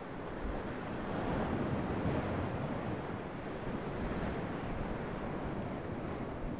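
Ocean surf breaking and washing over shoreline rocks, a steady rush that swells about a second in and again around four seconds.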